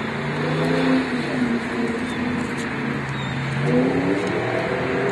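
Labrador retriever howling: two long, wavering howls, the second starting about halfway through.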